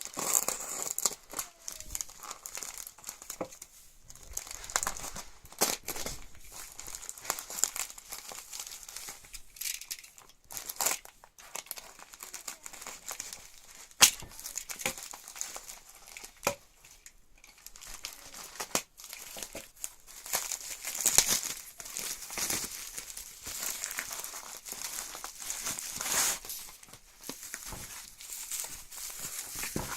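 Packaging being unwrapped and handled: irregular crinkling and rustling with scattered sharp clicks and taps, the sharpest about 14 seconds in.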